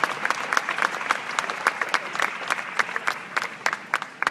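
Studio audience and rows of contestants applauding, dense clapping that fades towards the end and stops.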